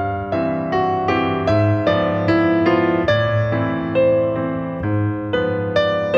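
Piano music: single struck notes, each fading, over low held chords, with a new note about every half second to a second.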